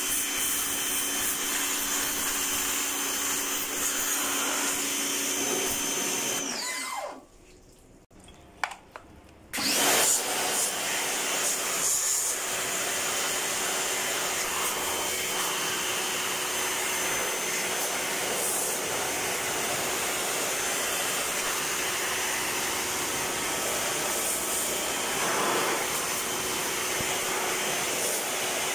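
Electric pressure washer running, its motor whining steadily while the jet sprays the car's radiator and AC condenser through the front grille. About a third of the way in the motor winds down and goes quiet for about three seconds, then starts up again suddenly.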